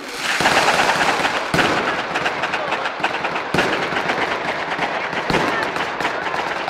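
Daytime fireworks going off: a dense, continuous crackle of firecrackers, broken by about four heavier bangs spaced a second or two apart.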